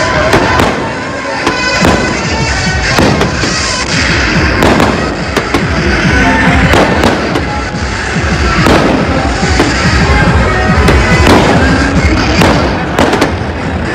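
Fireworks bursting overhead: an irregular string of sharp bangs and crackling pops, loud and close.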